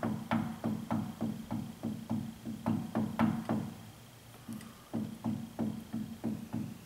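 Ratchet wrench clicking in quick back-and-forth strokes, about three a second, on the 19 mm differential bearing cap bolts of a Ford 9.75-inch rear axle. The strokes pause briefly about four seconds in, then resume.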